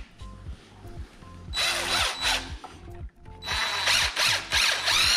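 Cordless power driver running long screws into a 2x2 pine rail, in two runs, the first about a second and a half in and the second from about three and a half seconds in, its motor pitch shifting as the screw bites. Background music plays underneath.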